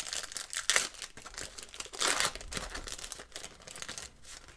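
Foil-lined paper wrapper of a trading-card pack crinkling as it is pulled and torn open by hand, in a run of crackles with the loudest bursts about a second in and about two seconds in.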